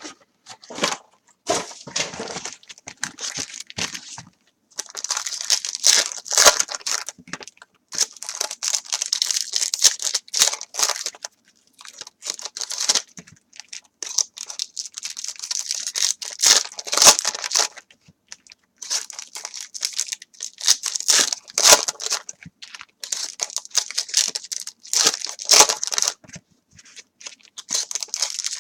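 Foil wrappers of Topps Chrome card packs being torn open and crinkled by hand, in repeated bursts of crackling a second or few long with short pauses between.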